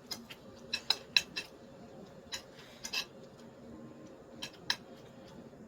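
Small eating sounds while eating chow mein: about ten short, sharp clicks and clinks at irregular intervals, bunched in the first second and a half and again around three seconds.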